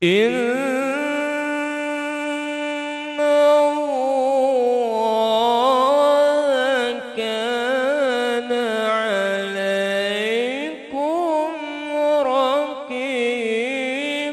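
A man chanting solo into a microphone in the melismatic style of Qur'an recitation (tilawah), holding long notes with wavering ornaments. The pitch dips low and slides back up about ten seconds in.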